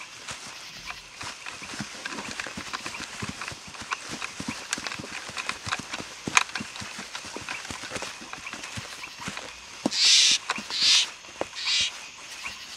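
Steady, irregular clip-clop of many footfalls, with three short breathy hissing bursts about ten seconds in.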